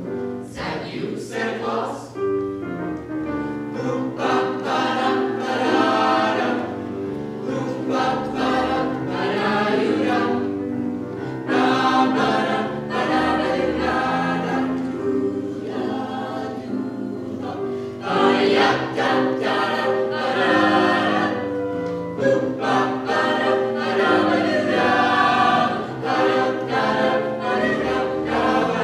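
Small mixed vocal ensemble singing in close harmony through microphones, with held chords over a steady bass line.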